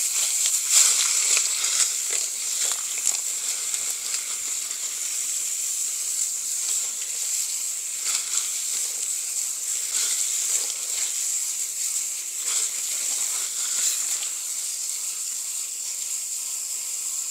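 Heavy rain pouring down: a steady hiss with a dense patter of drops, cutting off suddenly at the end.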